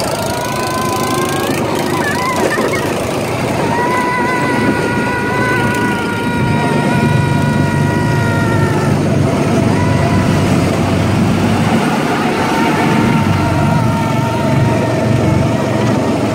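Small single-cylinder gasoline go-kart engines running at speed, a steady engine whine that climbs early on and then holds, over a low rumble.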